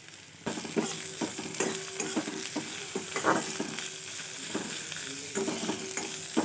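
Chopped onion frying in hot oil in a kadai, sizzling steadily as a spatula stirs it and scrapes and knocks against the pan. The sizzle picks up about half a second in.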